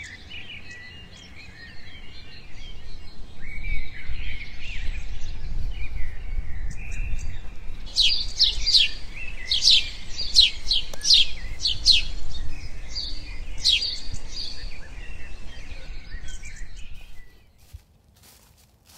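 Woodland birdsong, with several birds chirping and a louder run of quick downward-sweeping notes in the middle, over a low rumble. It cuts off suddenly near the end, leaving a few faint rustles.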